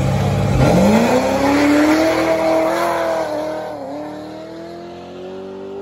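Supercharged Corvette V8 launching from the line and accelerating hard, its pitch rising steadily, with a brief dip at a gear shift about four seconds in. It grows quieter as the car pulls away.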